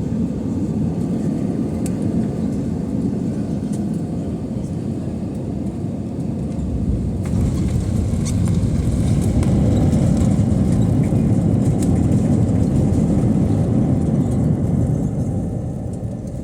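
Cabin noise of an Airbus A320 landing: a steady low rumble that changes abruptly about seven seconds in, then grows louder for several seconds before easing near the end.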